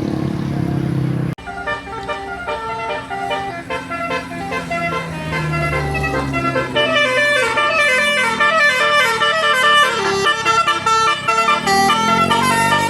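Bus telolet basuri horn, a multi-note musical air horn, playing a quick melody with its notes changing several times a second. It starts after about a second of a vehicle's low running sound, which breaks off suddenly.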